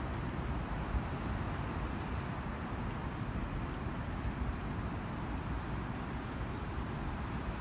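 Wind buffeting the phone's microphone outdoors: a steady low rumble with a hiss above it.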